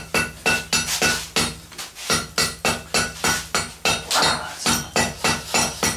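Hand hammer striking a glowing billet of bicycle chain and spokes on an anvil, about two to three blows a second, each with a metallic ring. The billet is at welding heat and is being forge-welded into solid steel, turned between blows.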